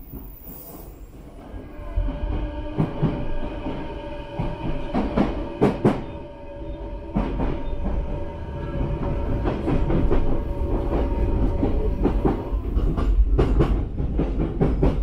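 Odakyu Line electric commuter train running, heard from inside the passenger car: a low rumble with a steady motor whine and irregular clicks of the wheels over rail joints. It grows louder about two seconds in.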